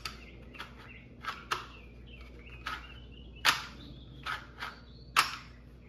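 Kydex holster clicking as a Glock 48 pistol is worked in and out of it: a series of about ten sharp plastic snaps, the loudest two about halfway through and near the end. Birds chirp faintly in the background.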